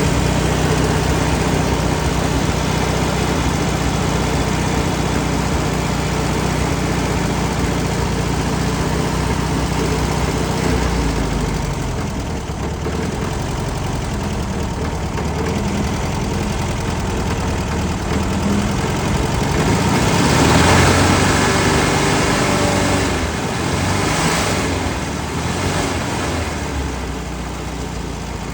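1966 Volkswagen Beetle's 1300cc air-cooled flat-four engine running, idling steadily at first, then engine speed changing through the second half, loudest about two-thirds of the way through.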